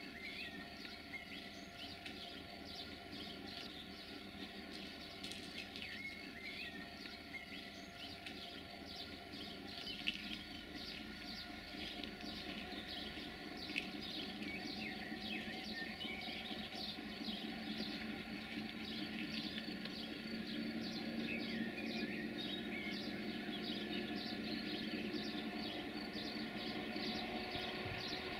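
Birds chirping continuously over a low steady hum that grows gradually louder as a Siemens Vectron electric locomotive hauling an intermodal freight train approaches.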